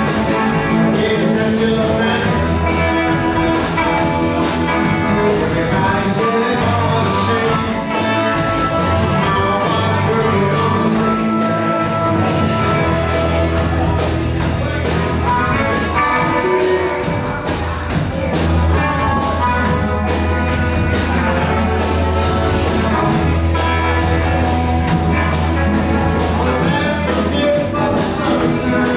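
Live electric blues band playing an up-tempo number: two electric guitars over a walking upright bass and a steady drum beat, with harmonica played through a microphone.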